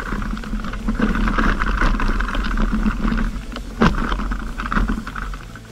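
Mountain bike ridden at speed down a dirt trail: wind rushing over the microphone, tyres running over the dirt and the bike rattling, with a sharp knock just before four seconds in.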